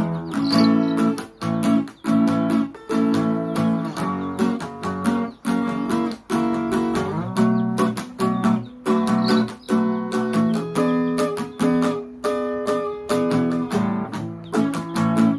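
Acoustic guitar strummed in a steady rhythm, chord after chord.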